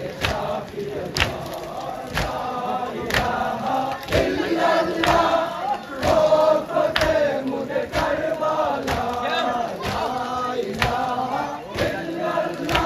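Crowd of men chanting a Muharram mourning chant in unison, with a sharp beat about once a second keeping time.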